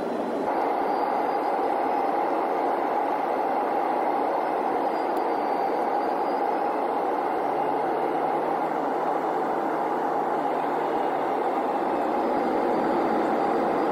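Steady cabin noise of an airliner in flight: the even rush of jet engines and airflow heard from a window seat over the wing, with a small jump in the sound about half a second in.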